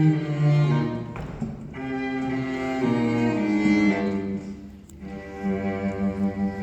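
Bowed strings playing sustained, slowly moving notes, with a cello low and prominent.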